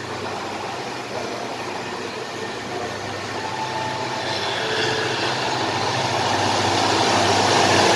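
Diesel locomotive approaching along the track, its engine running with a steady low hum that grows gradually louder.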